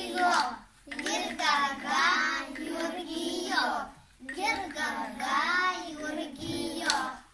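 A group of young children singing a song together in unison, in phrases separated by short breaks.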